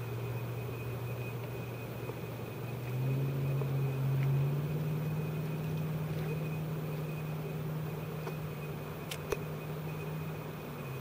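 A motor engine running with a steady low drone, its pitch stepping up about three seconds in and then holding. A single sharp click comes near the end.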